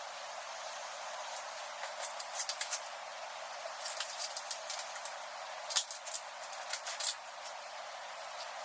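Chalk line being worked across a wooden board: scattered light clicks and taps over a steady hiss, with one sharper, louder snap a little before six seconds in.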